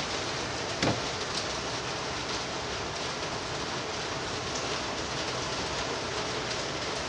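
Steady rain noise, an even hiss. A single brief knock about a second in.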